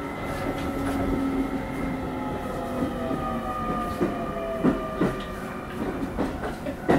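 Keio 9000 series electric train heard from inside the car as it gets under way: the traction motors' inverter whine as several steady and gliding tones, with wheels clicking over rail joints a few times in the second half.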